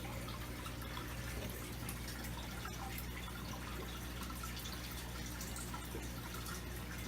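Tetra Whisper aquarium equipment running in a freshly filled tank: a steady low electric hum, with water trickling and dripping.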